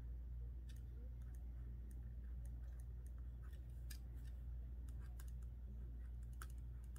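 Faint scratching and light ticking of a pen writing on a paper planner sheet, over a steady low hum.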